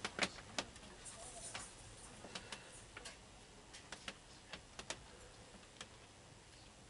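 Faint, irregular light clicks and taps, about a dozen scattered through, from small items being handled during feeding.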